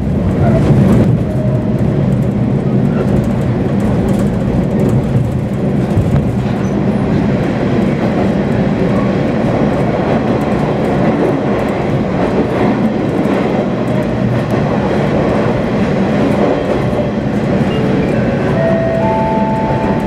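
KiHa 40 diesel railcar running along the line, heard from on board: a steady low engine drone mixed with the noise of wheels on rail. Near the end, two short steady tones sound over it.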